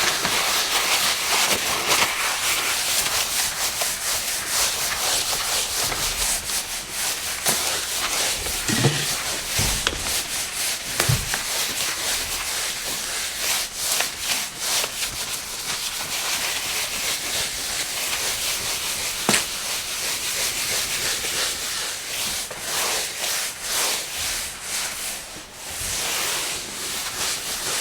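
A cloth wiping a countertop: continuous rubbing strokes back and forth, each a short hissy swish, with a brief pause about two seconds before the end.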